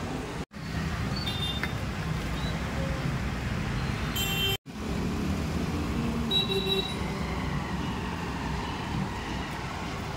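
Steady low rumble of road traffic. It cuts out for an instant twice, about half a second and about four and a half seconds in.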